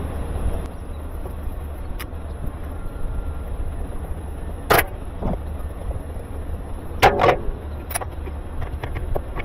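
A few sharp knocks and clatters during work on a washing machine, the loudest about halfway through and a double knock about seven seconds in, over a steady low rumble.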